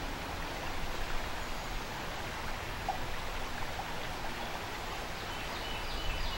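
River water rushing, a steady, even rush of flowing current.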